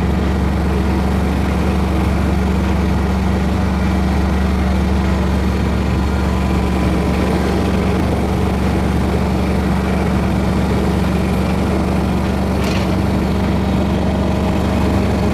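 A small engine running steadily at a constant speed, loud and close.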